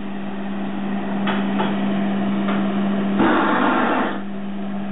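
Blowtorch flame hissing steadily while heating a bronze statuette for hot patination. It grows louder for about a second from just past three seconds in.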